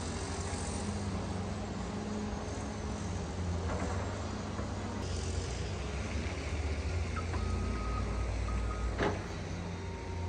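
Heavy diesel engine of a CAT 326F excavator running steadily as it works demolition rubble with its grab. Two short beeps sound about seven to eight seconds in, and a single sharp knock comes about nine seconds in.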